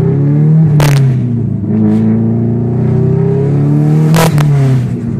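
Subaru Impreza STI's turbocharged flat-four engine accelerating hard through the gears on its new exhaust. The engine pitch climbs and drops twice, with a short burst of noise at each gear change, about a second in and again near the end.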